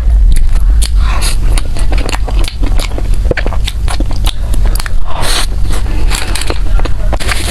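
Close-miked eating of bread: sharp crunchy bites and chewing, with loud crackly bursts about a second in, around five seconds in and near the end.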